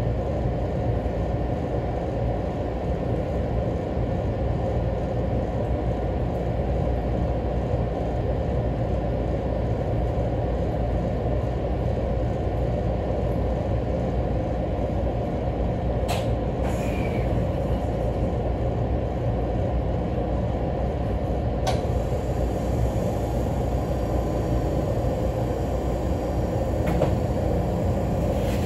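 Inside an ET127 series electric train standing at a station: the steady low hum of its onboard equipment, with a few sharp clicks around the middle and a low steady tone coming in near the end.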